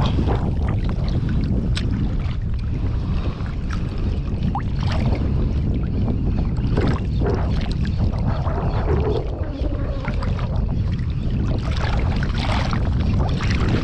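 Wind rumbling on the microphone over sea water sloshing and splashing close by, with scattered small splashes.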